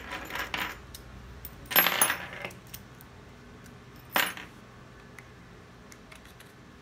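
Short metallic clinks and rattles, three times about two seconds apart, as small metal parts are handled.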